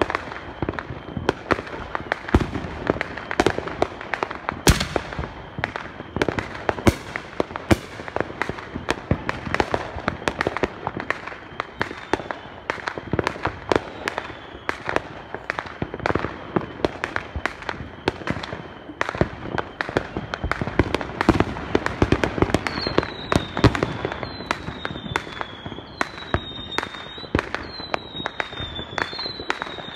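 Fireworks and firecrackers popping and banging without pause, many overlapping sharp cracks near and far. Over the last several seconds a high falling whistle repeats about once a second.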